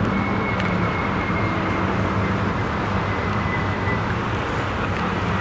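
Ferrari F430's V8, with a Capristo exhaust and test pipes, idling with a steady, even low note.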